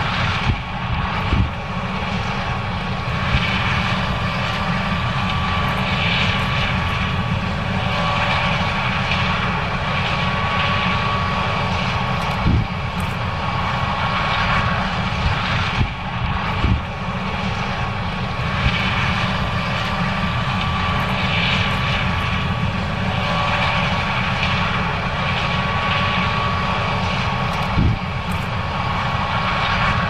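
John Deere S670 combine harvester running steadily under load while harvesting corn: a continuous engine and machinery drone with a thin steady whine and a surging hiss, broken by a few brief thumps.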